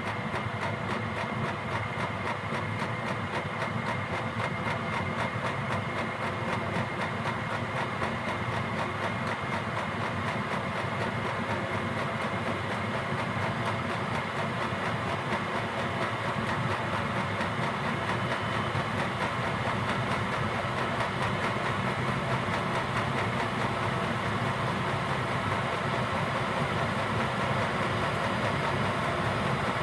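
Gearlasso 8 kW Chinese diesel air heater running steadily at its highest output setting: the steady hum of its combustion and air fans, with the fuel dosing pump ticking quickly as it feeds maximum fuel.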